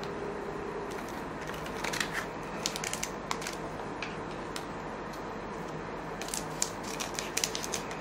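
Trading cards and their foil pack being handled: scattered small clicks, snaps and crinkles in two clusters, over a steady low room hum.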